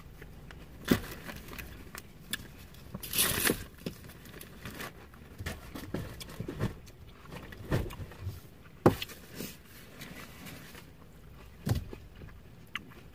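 A reusable shopping bag and its contents being handled and put away: scattered knocks and clicks, with a longer rustle about three seconds in and a sharp click about nine seconds in.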